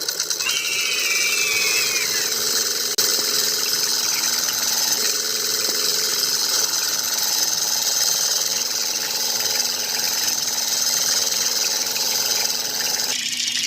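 Small motor running steadily with a dense, high buzzing mechanical rattle, broken briefly about three seconds in.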